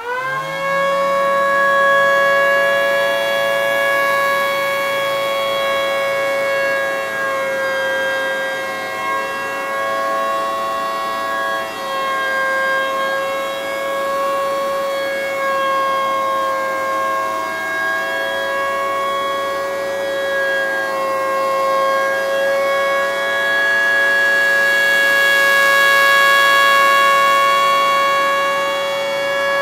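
3D-printed miniature Federal Signal Thunderbolt civil defense siren running its 5-port single-tone chopper: it winds up within the first second, then holds one steady siren tone. The tone wavers slightly and swells and fades gently as the horn rotates.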